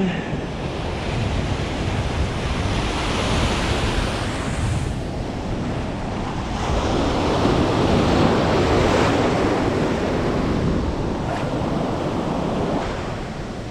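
Ocean surf breaking and washing up a sand beach close by, with wind buffeting the microphone. The wash swells and eases in surges, loudest a little past the middle.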